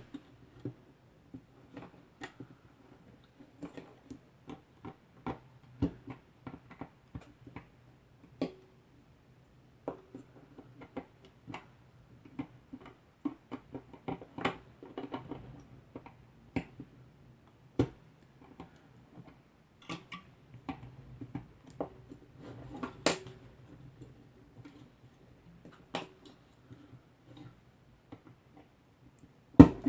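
Irregular small clicks, taps and rustles of hands working Cat6 cable conductors into plastic network connector parts, over a faint steady low hum.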